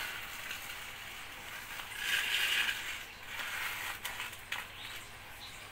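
Plastic toy bulldozer truck pushed by hand through sand on a concrete floor: a gritty scraping and rattling of its wheels and blade, loudest about two seconds in, with a few sharp clicks near the end.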